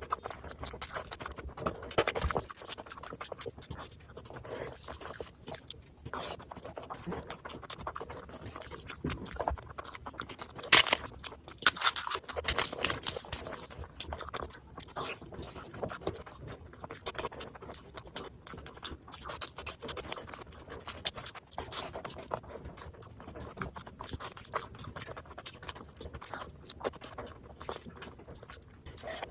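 Close-miked eating sounds: wet chewing and lip smacking, with the squish of hands grabbing and squeezing biryani rice and chicken. A louder crackly stretch comes a little before the middle.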